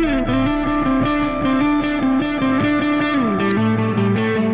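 Background music: a distorted electric guitar playing a repeated riff, with a downward pitch slide at the start and again about three seconds in.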